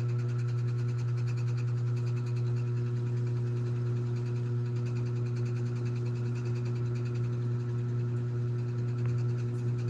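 A small motor running with a steady low hum and a fast, even buzz that holds unchanged throughout.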